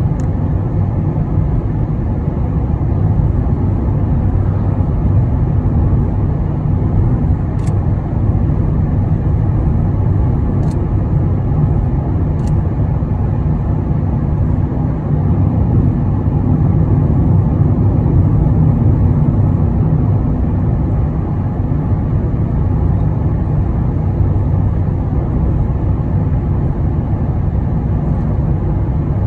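Steady low road and engine rumble of a car cruising on the highway, heard from inside the cabin, with a few faint ticks in the first half.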